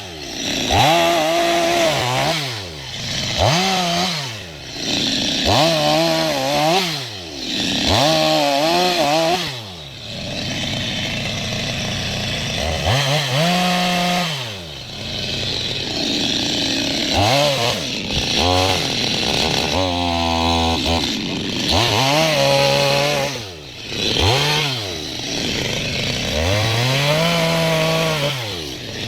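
Chainsaw engine revved up and down over and over, each rev rising and falling within about a second. About ten seconds in, it holds high and steady for several seconds.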